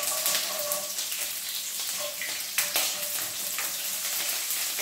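Mustard seeds and water-soaked chana dal frying in hot oil in a nonstick pan: a steady sizzle with scattered crackles and pops, stirred with a silicone spatula. The spluttering comes from the water the soaked dal carries into the oil.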